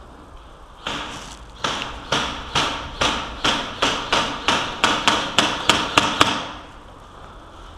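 Quick footsteps crunching over gritty, debris-strewn concrete, about two to three steps a second, stopping just after six seconds in.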